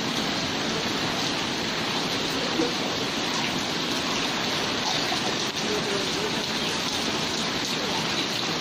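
Heavy rain pouring down steadily, splashing onto a flooded street and the stall awnings overhead.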